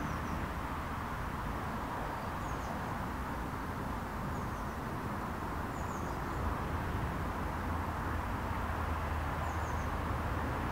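Outdoor garden ambience: a steady low background rumble with faint, short high bird chirps about five times.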